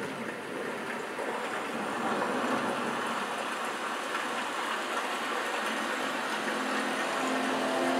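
Rushing water and rainforest ambience from a Dolby Atmos demo soundtrack, played through a home theater speaker system and picked up in the room. A few sustained music notes come in near the end.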